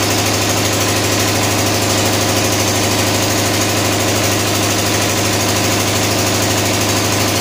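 Four-stroke single-cylinder diesel engine on a test rig running steadily at a constant, even level, with a rapid regular beat.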